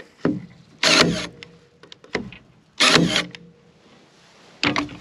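Makita DST221Z 18 V cordless stapler firing 22 mm staples through mahogany into solid oak: three loud, sudden shots about two seconds apart, with fainter clicks between.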